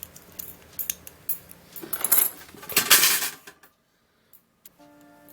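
Small metal parts clinking and rattling while screws and a handle are fitted to a hibachi grill, with a louder stretch of handling about two to three seconds in. It cuts to a moment of dead silence, and soft background music begins near the end.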